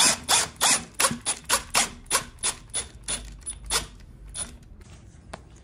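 Hand ratcheting screwdriver clicking stroke after stroke as it drives a wood screw into a chair leg, about four to five strokes a second, fading out after about four seconds.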